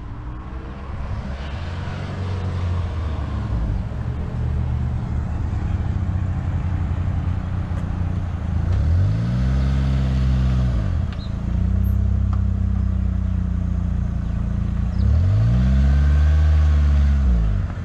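Manual-transmission car's engine running as the car is driven on a hill by a learner, revving up and back down twice: once about halfway through and again near the end.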